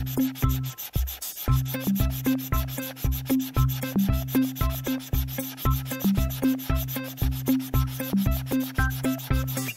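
Background music with a steady beat, low pitched notes and a scratchy, rubbing percussion on each beat; the low part drops out briefly about a second in.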